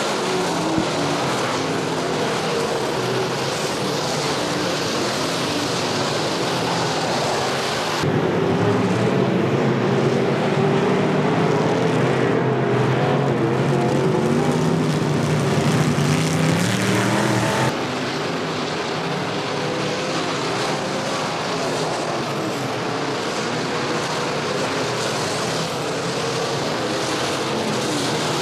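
IMCA Modified dirt-track race cars' V8 engines running at racing speed, several cars at once. About eight seconds in the sound jumps abruptly louder, with engine notes rising and falling as cars go by close. It drops back abruptly about ten seconds later.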